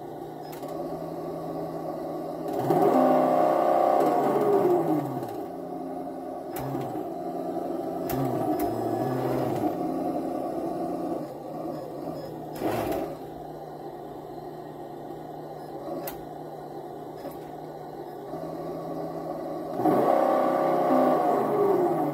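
An RC truck's engine sound box plays a simulated engine idle through a small speaker. It revs twice, about three seconds in and again near the end, and the pitch slides back down after each rev. A short knock sounds about halfway through.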